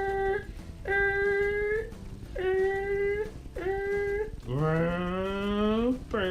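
A person's voice making playful sound effects: four short held notes at the same pitch, then a longer note that starts low and slides upward.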